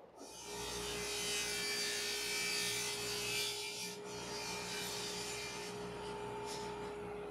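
Table saw running with a steady whine, its blade cutting through wood on a sled for about the first four seconds, then spinning free. A few light knocks of the wooden pieces come near the end.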